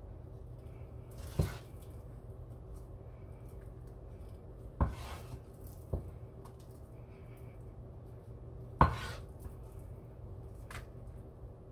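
Wooden spatula scraping and knocking against a metal pan while scooping out thick, sticky cooked halaya: about five sharp knocks a second or more apart, the loudest about three-quarters of the way through, over a steady low hum.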